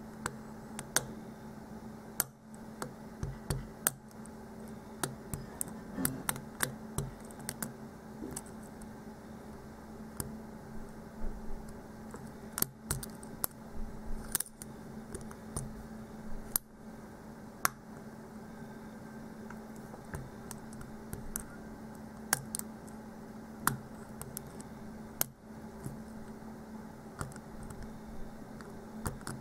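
Lock pick and tension wrench working pin by pin in the keyway of a security-pinned challenge lock: irregular light metallic clicks and ticks, a few sharper than the rest, over a faint steady hum.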